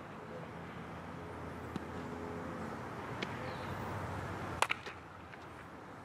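A bat strikes a baseball once, sharply, about four and a half seconds in, hitting a ground ball for infield practice. Under it is a steady outdoor ballfield background with a couple of faint ticks.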